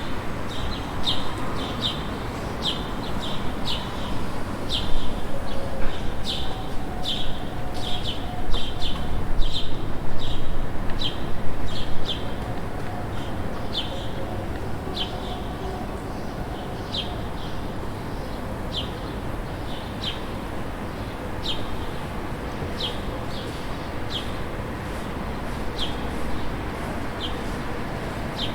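City street ambience: small birds chirping over and over in short, sharp notes above a steady hum of distant traffic. The chirps come thickly in the first half and thin out later, and the traffic swells for a while early on.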